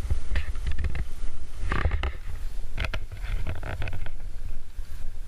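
Wind buffeting the microphone in a steady low rumble, with a few crunches of boots on snow about half a second, two, three and three and a half seconds in.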